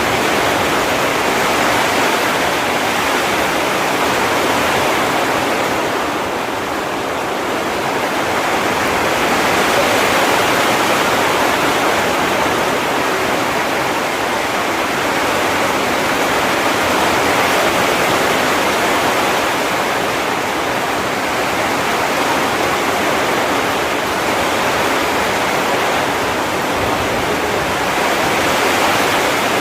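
Heavy rain pouring steadily, a dense even hiss, easing slightly for a moment a quarter of the way in.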